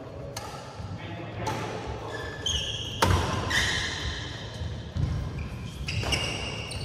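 Badminton rally: several sharp hits of rackets on the shuttlecock, the loudest about three seconds in, with short high squeaks of court shoes on the synthetic floor between the hits.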